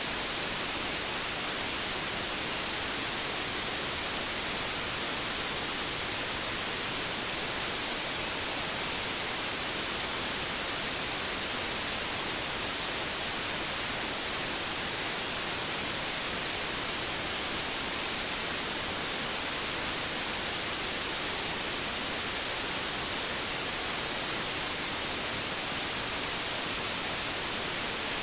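Steady white noise: an even, unbroken hiss, bright and strongest in the treble, with no change in level.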